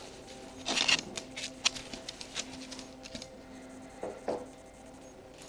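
A pug brushing against the camera and then walking off across a hardwood floor, its nails clicking. A burst of scratching about a second in, scattered clicks over the next two seconds, and two more clicks around four seconds in.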